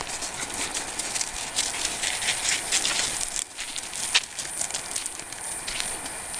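Footsteps crunching and scuffing on a gravel and dirt track, an irregular run of short crunches with a sharper one about four seconds in.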